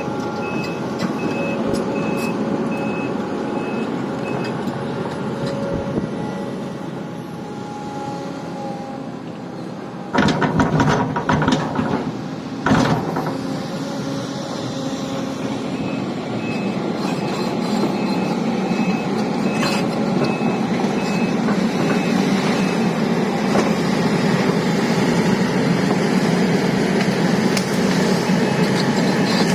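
Sumitomo SH350 excavator's diesel engine running steadily, with its warning beeper sounding about twice a second at the start and again through the second half. About ten seconds in come several loud cracks and crashes, an oil palm being pushed over and breaking.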